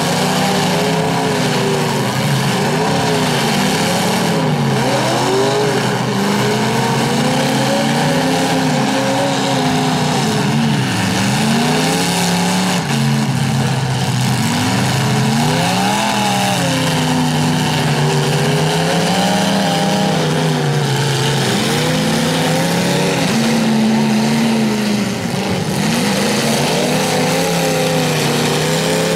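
Engines of demolition derby cars revving up and down continuously as the cars push and ram each other, with more than one engine running at once.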